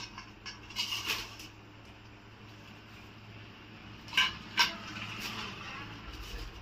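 Live spiny lobsters being handled in a metal colander bowl: short clatters and scrapes of shell and spines against the metal, about a second in and again around four seconds in, over a faint steady low hum.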